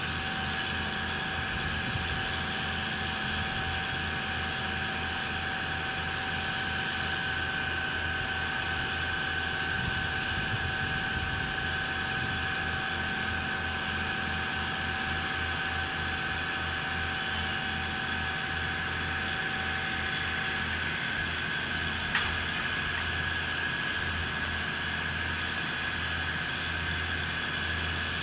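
A nearby engine running steadily, with a low throb under a constant high whine. A second, lower whine fades out about two-thirds of the way through, and there is a single short click near the end.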